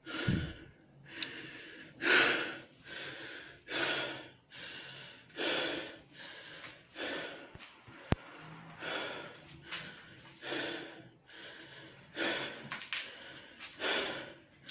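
An animal breathing noisily, in and out, with a snort-like rasp on each breath and roughly one full breath every second and a half. A single sharp click about eight seconds in.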